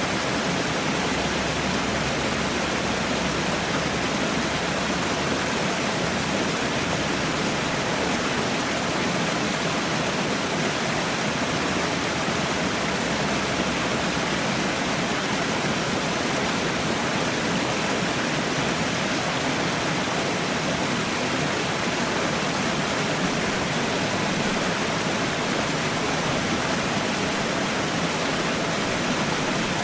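Falling water, as from a small waterfall: a steady, even rush with no breaks or changes.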